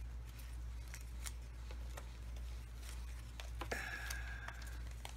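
Light handling noises from paper craft pieces and cellophane packaging: scattered faint clicks and taps, with a brief crinkling rustle about four seconds in, over a low steady hum.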